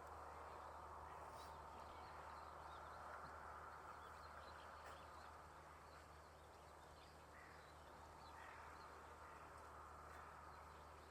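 Faint outdoor ambience: a steady low hum and hiss with a few faint, distant bird calls scattered through it.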